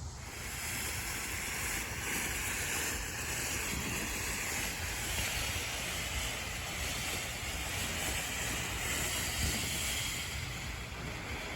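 Ground fountain firework hissing steadily as it sprays sparks, starting abruptly just as it catches.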